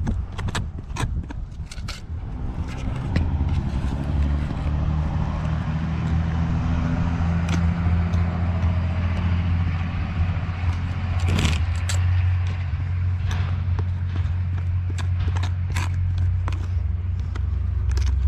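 A low, steady engine hum that starts a couple of seconds in and keeps running, with many short clicks and scrapes over it.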